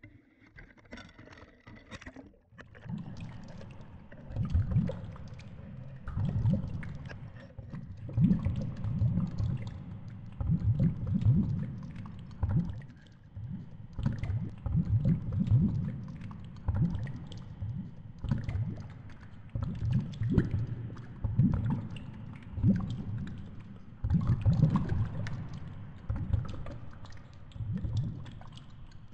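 Muffled underwater water noise on a GoPro in its housing near the 70 m seabed: low rumbling surges of water swelling and fading every one to two seconds, with faint scattered clicks over them.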